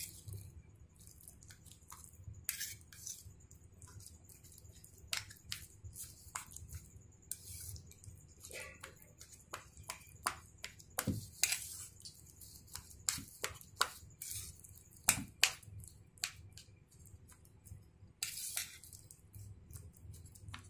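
Kitchen knife chopping soft roasted eggplant on a steel plate: irregular clicks and taps of the blade against the metal, with a few brief scrapes.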